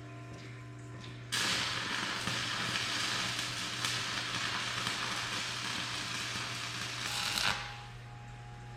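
Welding arc crackling and sizzling steadily for about six seconds as a flange is welded on, starting abruptly about a second in and stopping with a brief surge near the end. A steady electrical hum runs underneath.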